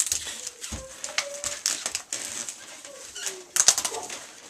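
Packaging being handled: rustling and crinkling in quick bursts, heaviest about three and a half seconds in, with a few brief faint whine-like tones in between.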